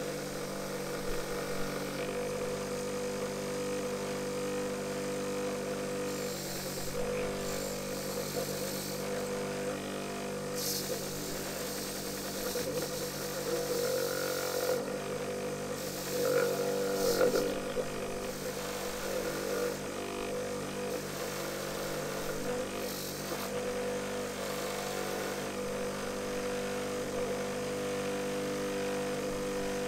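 Bench grinder running steadily with a wire wheel, a chisel blade pressed against the wheel now and then to strip rust and old glue. Each contact adds a hiss over the motor's hum for a second or two, the longest and loudest about two thirds of the way through.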